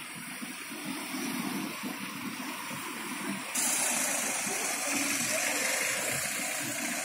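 Street traffic noise in a jammed road: a low rumble of idling vehicles under a steady hiss. About halfway a louder, brighter hiss cuts in suddenly and holds.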